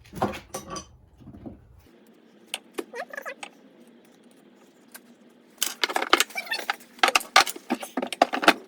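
Metal parts and tools clinking: a few scattered clicks, then from about halfway a quick, dense run of rattling clinks and taps.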